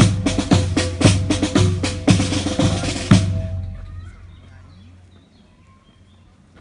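Marching band drum section playing a street cadence on snare and bass drums, the main beats coming about twice a second, stopping abruptly about three seconds in.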